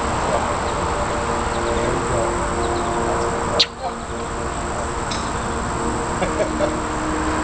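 Steady high-pitched insect trill, typical of crickets, over outdoor background noise, with one sharp click about halfway through.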